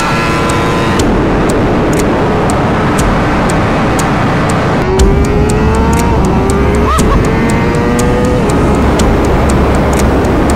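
Motorcycle engine accelerating: its pitch rises, falls back at a gear change about six seconds in, then climbs again. Music with a steady beat plays along.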